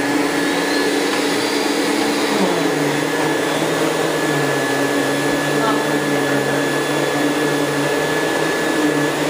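Vacuum cleaner running steadily with a constant motor hum and whine. Its low hum drops slightly in pitch about two and a half seconds in.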